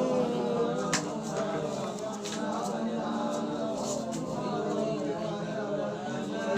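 Background music with a singing voice, and a few short, sharp clicks.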